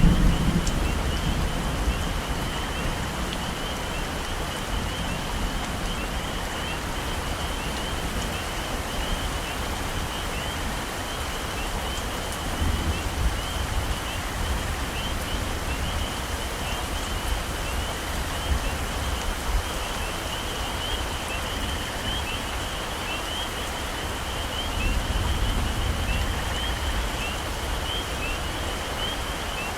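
Heavy rain falling steadily in a tropical forest, with a high, quick, steady chirping of small forest animals running through it. Low rumbles swell briefly at the start, about twelve seconds in, and again near the end.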